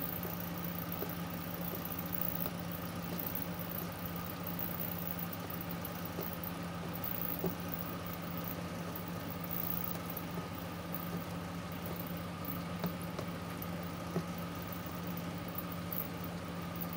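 A steady low machine hum with a fainter higher tone over it, and a few faint clicks.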